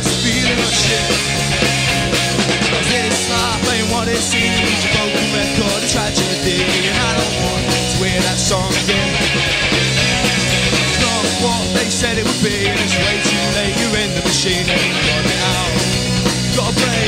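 Live rock band playing a song, with electric guitars and a drum kit at full volume and without a break.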